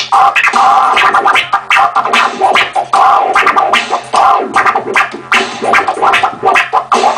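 Turntable scratching with timecode vinyl running Serato Scratch Live: a sample is pushed back and forth under the hand while the mixer's crossfader chops it into quick stuttering cuts.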